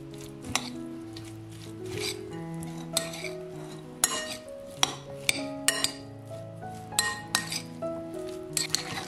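Metal cutlery clinking and scraping against a glass bowl while a mayonnaise-dressed potato salad is stirred, with about a dozen irregular clinks. Background music with sustained notes plays underneath.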